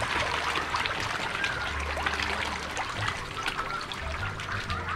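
Catfish churning the water surface of a fish tank as they take feed: a continuous patter of small splashes and trickling water.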